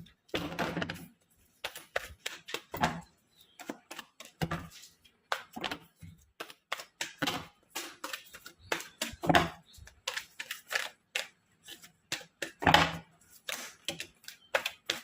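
Tarot cards being handled, shuffled and drawn from the deck: a quick, irregular run of card snaps and taps.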